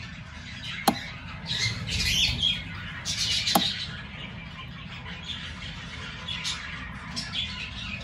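Cockatiel squawking harshly, loudest between about one and a half and three and a half seconds in, with a few weaker calls later. Two sharp clicks cut in, about a second in and about three and a half seconds in.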